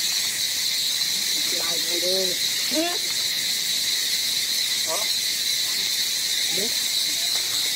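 Steady high-pitched drone of an insect chorus, with a few brief faint calls about two, five and six and a half seconds in.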